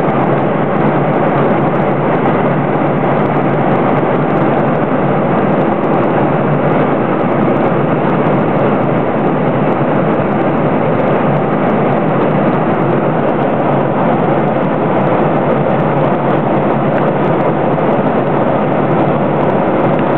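Airliner cabin noise in flight: a loud, steady rush of airflow and engine noise heard inside the cabin, unchanging throughout.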